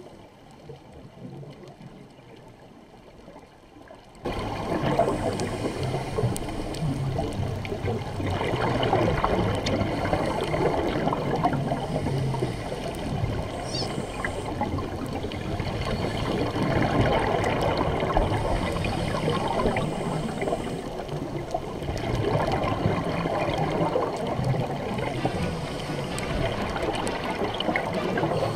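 Muffled underwater water noise picked up by a camera underwater, a dense rushing with faint crackling, cutting in abruptly about four seconds in after a few quieter seconds.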